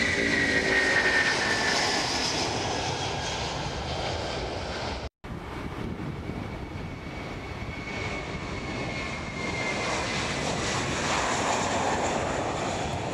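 Airliner jet engines: a high whine falling in pitch as a jet passes close, then, after a sudden gap about five seconds in, the steady running of an Airbus A321-231's IAE V2500 turbofans, growing louder near the end.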